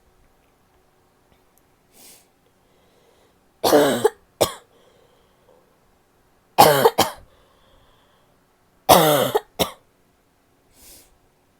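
A woman's harsh, barking cough: three bouts a few seconds apart, each a loud cough followed at once by a shorter one, with a faint breath before the first bout and after the last.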